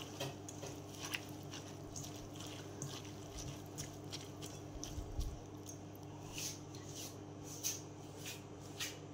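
A bare hand squeezing and turning moist pounded banana stem in a stainless steel bowl, giving faint, irregular squishing and crackling, over a low steady hum.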